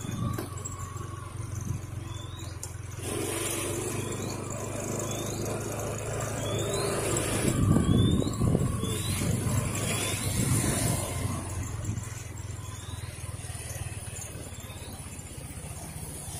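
Honda Click scooter's small engine running at a steady hum while riding along a street, with gusts of wind rush on the microphone. A short faint high chirp repeats roughly once a second.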